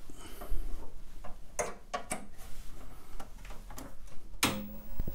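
A few scattered sharp clicks and knocks from a Commodore PET being handled by hand, with a louder knock near the end.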